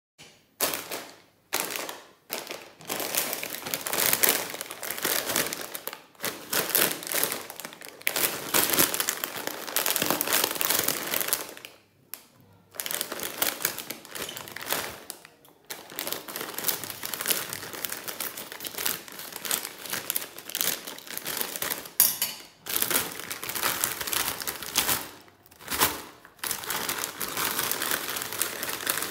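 Plastic potato-chip packets crinkling and rustling as hands handle and rummage through them, in stop-start stretches with short pauses.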